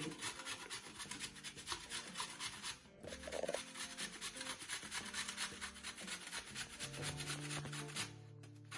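Peeled raw potato being grated on a metal box grater: quick, rhythmic rasping strokes, with a short break about three seconds in.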